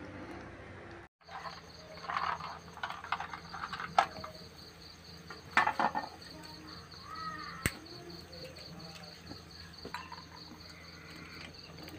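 Crickets trilling steadily, with scattered clinks and knocks from blood cockle shells in a metal wok set over a wood fire, and one sharp click.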